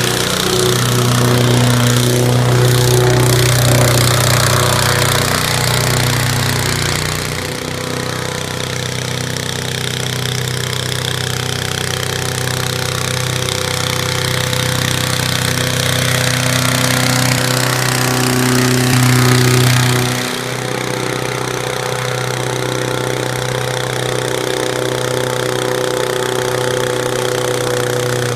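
Small single-cylinder gasoline engine driving the propeller of a homemade airboat, running steadily at speed with a loud propeller rush. The level and pitch change abruptly twice, about a quarter and about two-thirds of the way through.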